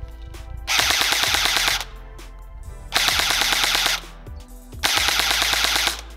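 Cyma CM.515 airsoft electric gun (plastic M4-style AEG with a metal gearbox) firing three full-auto bursts of about a second each, its gearbox cycling rapidly, with short pauses between.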